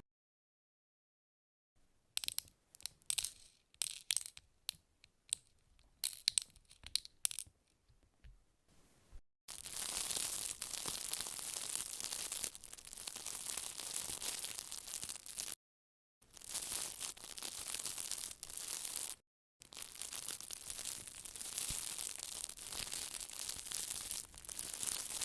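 Close-miked ASMR trigger sounds: first a scatter of sharp crisp crackles and clicks, then three long stretches of dense, continuous crackling, each broken off by a short silence.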